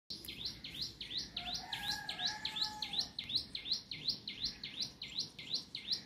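A bird calling in a fast, even series of high whistled notes, about three a second, each sweeping up and dropping back, so that the run sounds like an ambulance siren.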